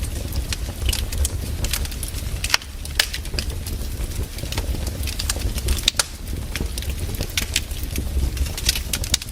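Firewood burning and crackling, with irregular sharp pops and snaps over a steady low rumble.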